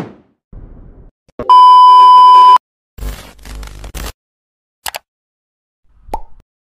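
A string of short transition sound effects played one after another. The tail of a whoosh comes first, then a steady electronic beep about a second long, which is the loudest. After it come a second-long burst of noise, a single click, and a short low thud near the end.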